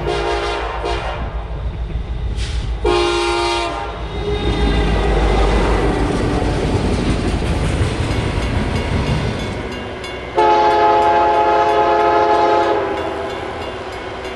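Locomotive horn sounding a chord in three blasts: two short ones in the first four seconds and a longer, louder one about ten seconds in. Underneath runs the steady rumble and clatter of a passing train, which fades near the end.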